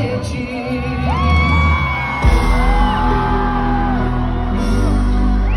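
Live pop concert music played loud over a PA and heard from within the crowd: a voice holds long sung notes over a band with heavy bass. A fuller, louder section with stronger bass comes in about two seconds in.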